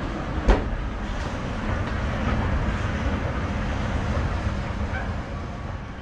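Steady outdoor city noise with a low rumble, and one sharp knock about half a second in.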